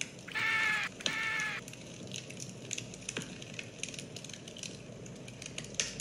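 Campfire crackling, with frequent sharp snaps of burning wood. Near the start come two short high-pitched calls, one right after the other.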